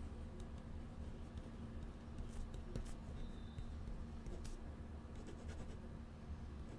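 Faint scratching of a pen writing on paper, with a few light clicks, over a steady low hum.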